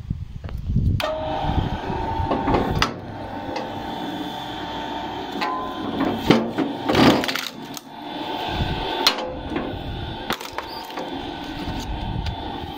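Electric-motor firewood splitting machine switching on about a second in and running with a steady whine, while logs are split on it with sharp knocks and one loud burst of splitting wood about seven seconds in.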